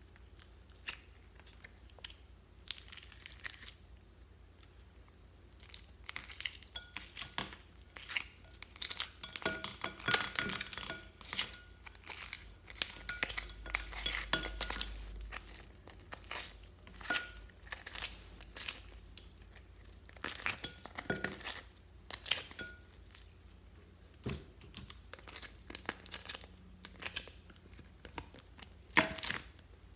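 Clear slime being squished and stretched by hand, making irregular sticky crackles and pops. It is sparse at first and busier after about six seconds.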